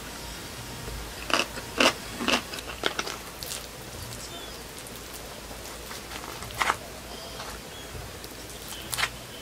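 Crunchy chewing of a slice of yellow pickled radish (danmuji): several loud crunches about every half second between one and three seconds in. Later, a couple of single clicks from a wooden spoon scooping rice in a plastic takeout tray.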